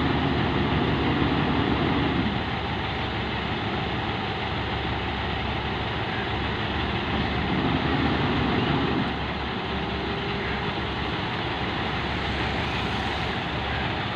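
Nissan Diesel V8 dump truck's engine running steadily while its tipper bed is raised to dump soil. It is a little louder for the first couple of seconds and again around eight seconds in.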